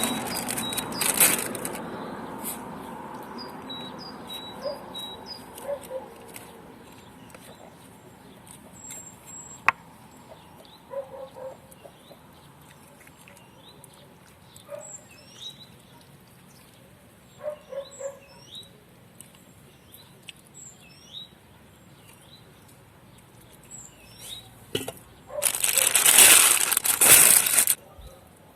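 Small birds chirping, with short high calls scattered throughout. Near the end a loud noisy rush lasts about two seconds.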